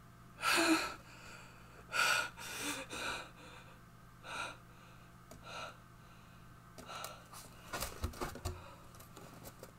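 A man's sharp breaths and gasps, half a dozen in the first six seconds, the first the loudest. Faint clicks and rustling near the end as he handles a manila folder.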